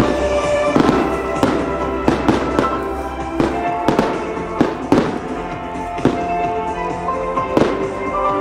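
Aerial fireworks shells bursting, about a dozen sharp bangs at uneven intervals, over music playing steadily.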